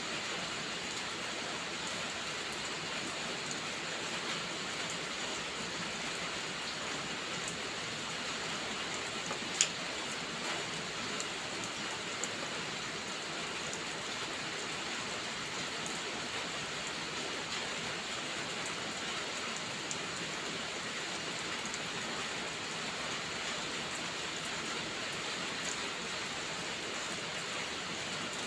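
Steady hiss of heavy rain, with a few sharp pops and crackles from a wood fire scattered through it; the loudest pop comes about ten seconds in.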